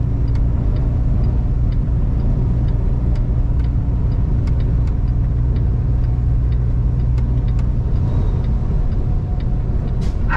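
Semi-truck engine and road noise heard from inside the cab while driving, a steady low drone with faint scattered clicks.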